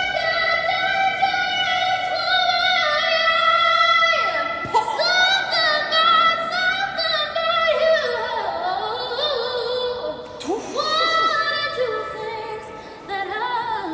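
A high voice singing long held wordless notes that waver slightly, with sliding pitch runs between phrases.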